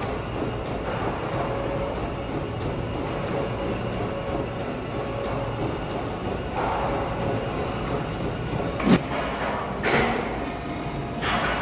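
Steady rumbling background noise of a gym, with a sharp knock about nine seconds in and a couple of softer clatters near the end.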